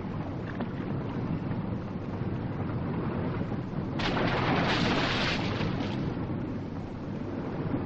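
Sea and wind noise: a steady wash of waves, with a louder surge of water about four seconds in that lasts a second or so.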